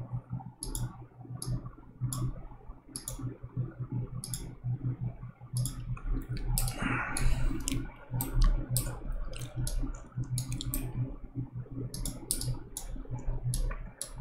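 Computer mouse clicking: sharp, irregular clicks about two a second, coming faster near the end, over a low steady hum.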